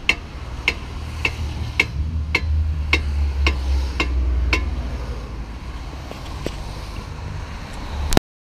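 A ball-peen hammer striking a car's front brake disc in a steady run of about nine ringing metallic blows, roughly two a second. The blows stop about halfway through, and only a couple of faint knocks follow. Wind rumbles on the microphone throughout.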